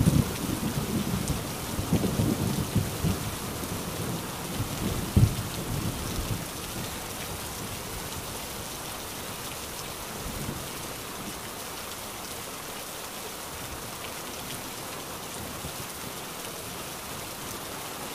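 Heavy rain falling steadily while a roll of thunder rumbles and crackles, with one louder clap about five seconds in; the thunder dies away after about six seconds, leaving only the steady rain.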